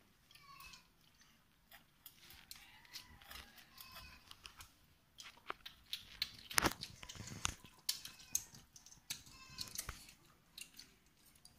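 Eating sounds of rice and curry eaten by hand: chewing with scattered small clicks and crunches, and a sharper click a little past halfway.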